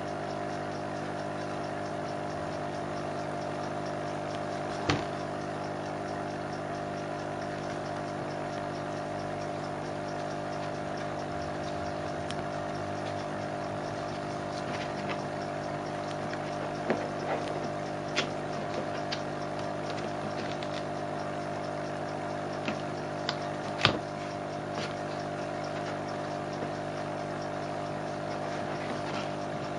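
A steady mechanical hum of several held tones, with a few sharp knocks and light scratches as a kitten paws at a cardboard box and its foam packing. The loudest knocks come about five seconds in and about two-thirds of the way through.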